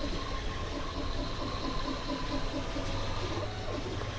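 Steady hissing background noise over a low hum, with a faint quick run of soft pulses, about four or five a second, in the first three seconds.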